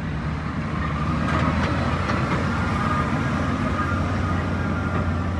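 Heavy truck's diesel engine running steadily with a constant low drone.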